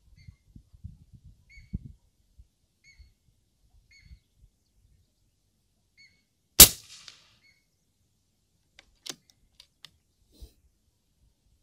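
A URKO Long Rifle PCP air rifle with an M22 barrel fires a single shot about six and a half seconds in: one sharp crack with a short tail. A bird chirps repeatedly before the shot, and a few light clicks follow near the end.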